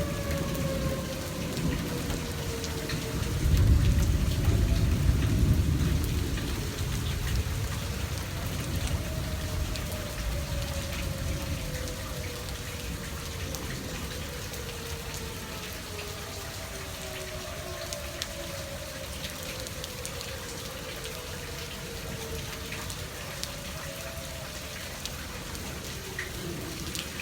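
Outdoor tornado warning sirens wailing, their pitch slowly wavering up and down, over a steady patter of rain. A loud low rumble comes about four seconds in.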